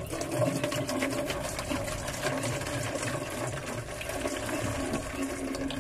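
Acid poured in a steady stream from a plastic bottle into a plastic jug partly full of the same liquid: continuous pouring and splashing, made of fast, even patter.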